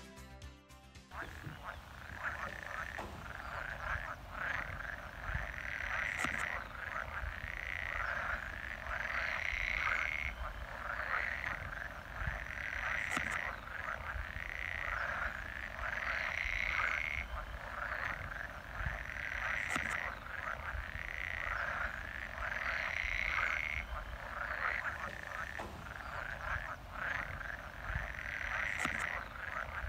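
A chorus of many frogs croaking, swelling and easing off in waves every three to four seconds; it comes in about a second in.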